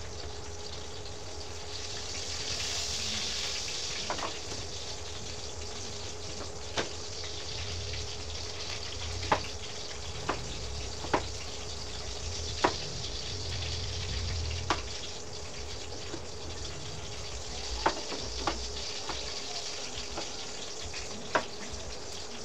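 Kitchen knife tapping sharply on a wooden table or cutting board, about a dozen single knocks one to three seconds apart, as food is cut by hand. Under it runs a steady hiss with a faint low hum.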